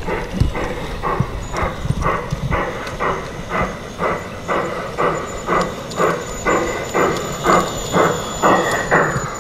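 Garden-railway model steam locomotive chuffing steadily, about two even chuffs a second, as it runs along the track.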